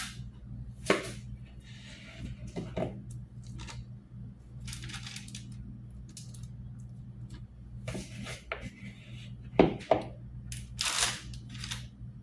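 Cookie dough being scooped with a metal spoon and pushed off with a silicone spatula onto a parchment-lined baking sheet: intermittent scraping and paper rustling with several sharp clicks of the spoon, over a steady low hum.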